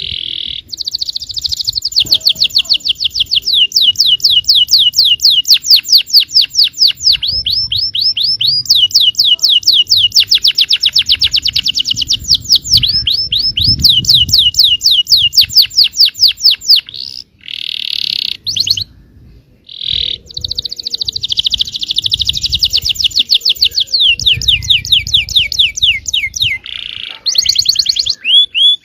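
Yellow domestic canary singing loud, long rolling trills: fast runs of many quick sweeping notes, repeated for several seconds at a time, with short pauses about 17 and 19 seconds in.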